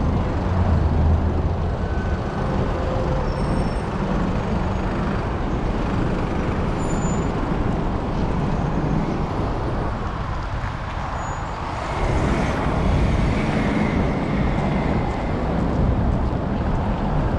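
Steady road traffic noise from a busy city avenue, heard from a bicycle riding in traffic, easing for a moment about ten seconds in.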